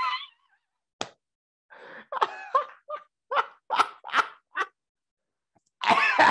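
A man laughing hard in short, separate bursts: one loud burst at the start, a run of quick bursts about three or four a second through the middle, and louder, denser laughter again near the end.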